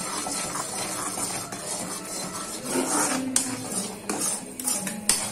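Metal spoon stirring and scraping a thick, bubbling chikki syrup mixture around a metal kadai. The spoon clinks against the pan about 3 s in and a few times near the end.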